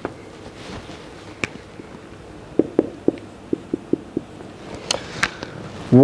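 Whiteboard marker writing on a whiteboard: a run of quick short taps and a few thin squeaks as figures are written and boxed.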